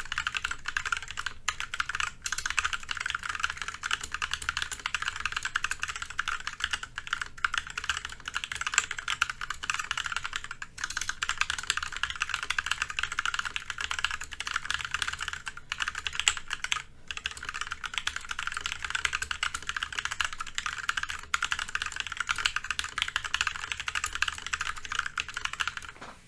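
Fast, continuous typing on a mechanical keyboard with linear Kailh Pro Burgundy switches, the keystrokes coming thick and fast with a few brief pauses. The space bar is damped with rubber bands underneath, which gives it an almost clicky sound.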